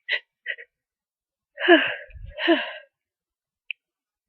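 A person with a head cold sneezing twice in quick succession, each sneeze a loud burst with a falling voice, after a couple of short catching breaths of the buildup right at the start.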